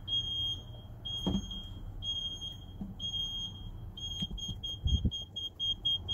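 Car warning chime beeping about once a second, changing a little after halfway to quick short beeps about four a second. A couple of dull knocks from the speaker being handled against the door.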